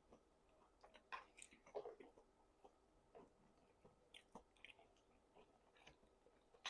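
A person chewing food quietly, with faint, irregular small mouth clicks.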